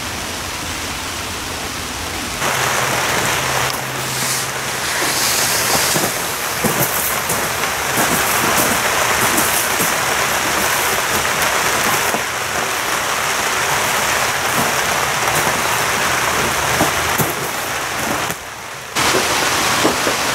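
Handheld power tool grinding and planing hardened glue squeeze-out off a laminated wooden keel: a continuous harsh hiss. The sound steps up about two and a half seconds in and dips for a moment near the end.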